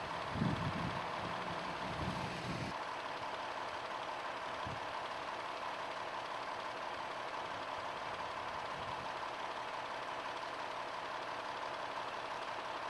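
Fire engine idling steadily, with a few low knocks in the first couple of seconds.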